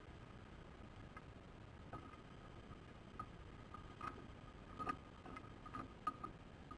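Faint short clicks and chirps from ospreys feeding at the nest, a few at first and then coming faster in the second half, with the loudest near the end.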